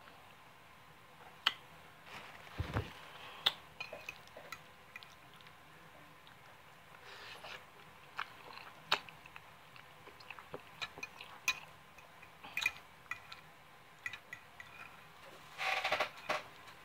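Close-up eating sounds: a person chewing soft, creamy egg noodles, with wet mouth noises and scattered sharp clicks of a metal fork against the plate. A short louder cluster of mouth noise comes near the end.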